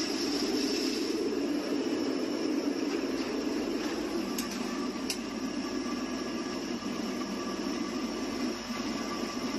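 Electric grinding mill running steadily while grinding peanuts: a constant machine drone with a thin whine above it. Two sharp clicks come about four and a half and five seconds in.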